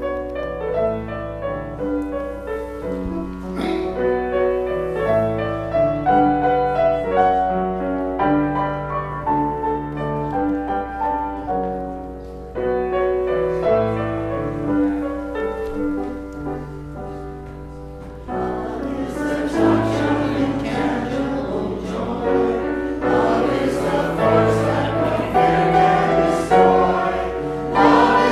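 Grand piano playing a hymn introduction; about 18 seconds in, the church congregation joins in singing the hymn with the piano.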